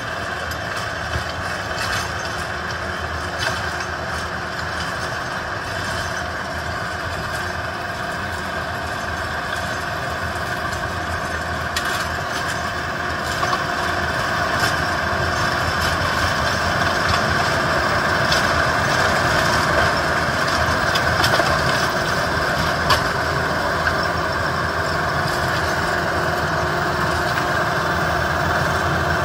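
Yanmar YT490A tractor's diesel engine running steadily, driving a rear rotary tiller through the soil; it gets a little louder about halfway through as the tractor comes closer.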